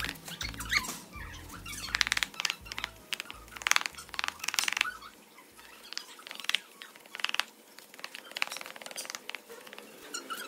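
A wooden stick scraping and tamping damp, gritty concrete mix in a wooden mould, a series of short scratchy strokes. Background music plays under it for about the first half, then stops.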